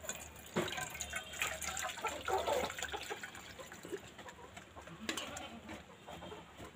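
Hot hibiscus tea poured from a soot-blackened pot through a plastic tea strainer into a vessel below, liquid splashing and trickling, with a few light knocks of pot and strainer.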